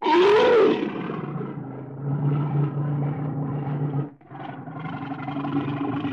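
Brown bear vocalising: a sudden call that rises and falls in pitch at the start, then a long, low, steady growl, broken briefly about four seconds in.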